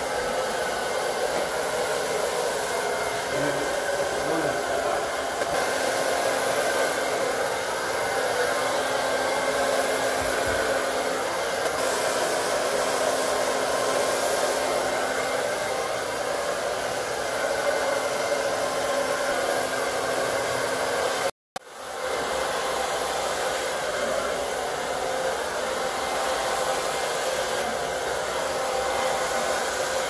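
Hand-held hair dryers blowing steadily while long hair is blow-dried with a round brush. The sound breaks off for a moment about two-thirds of the way through.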